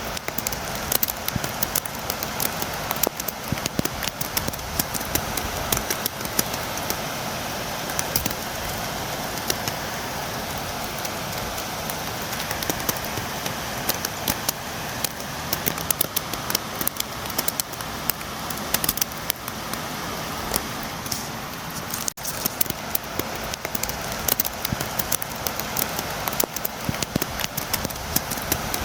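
Steady rain with many sharp drop taps, the rain drumming against a window.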